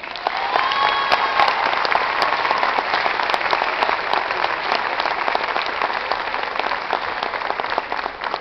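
Audience applauding, many hands clapping together. It starts suddenly and stays dense and steady throughout.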